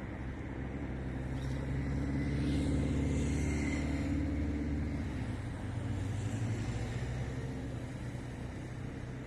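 A low engine drone, swelling about three seconds in and then easing off, like a motor passing at a distance.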